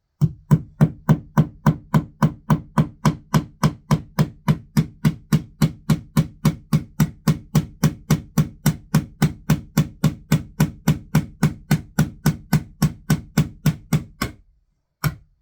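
Hammer driving a nail into a wall with a steady run of quick blows, about three to four a second. The blows stop briefly near the end, then a few more follow.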